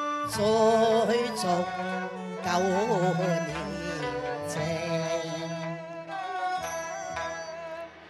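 Cantonese opera (yuequ) music from a traditional Chinese ensemble: a wavering melody over sustained notes, with a few sharp percussion strikes.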